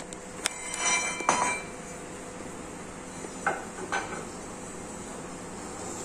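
Metal clinks and clanks as a stand is set under a dirt bike: a few ringing clinks about a second in, then two duller knocks near the middle.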